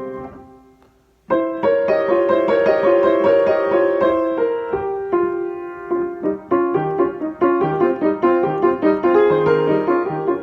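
Solo piano: a held chord fades away into a short pause, then a busy passage of quick repeated notes starts just over a second in and runs on at a steady, lively pace.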